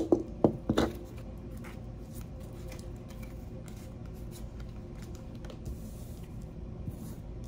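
A few sharp clicks and taps in the first second as the black crystal and tarot cards are handled on the tabletop, then only faint ticks and rustles of cards being turned over against a steady low room hum.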